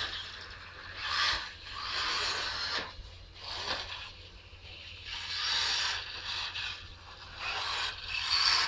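Radio-controlled off-road cars running on a dirt track, their tyres scrabbling on the loose surface in repeated swells as they pass.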